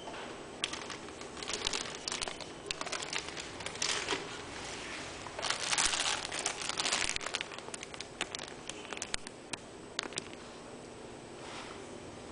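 Clear plastic bags holding model-kit sprues crinkling as they are handled, in irregular crackly bursts that are loudest about halfway through.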